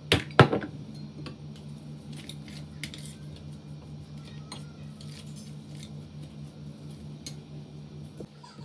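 A few sharp clinks of hard objects, like dishes or utensils, in the first half-second, then scattered light clicks over a steady low hum.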